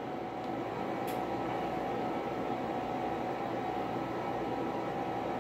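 Steady background hum and hiss of the room, with a faint steady tone, and one faint click about a second in.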